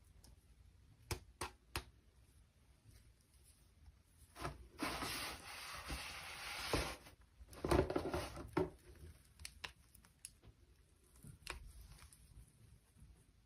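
Toy packaging being handled and torn open: a few light clicks, then about two seconds of steady tearing and rustling about five seconds in, followed by louder crinkling and scattered taps.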